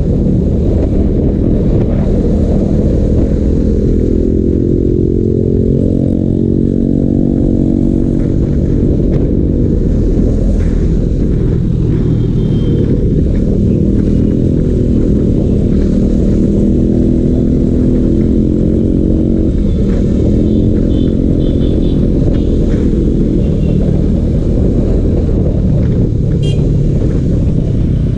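KTM Duke 250 motorcycle's single-cylinder engine running under way in traffic, with its pitch rising as it accelerates about four to seven seconds in and changing pitch again with throttle later.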